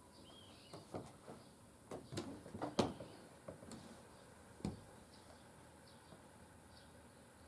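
Small birds chirping faintly in short high calls, with a run of irregular clicks and knocks over the first few seconds, the loudest a little under three seconds in, and one more near the middle.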